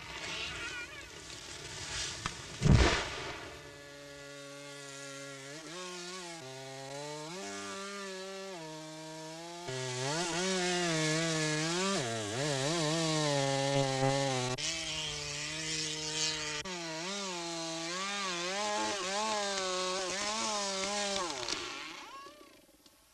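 Chainsaw running at cutting speed, its engine pitch rising, dropping and wavering as it works through wood, then dying away near the end. A loud, sharp thump comes about three seconds in.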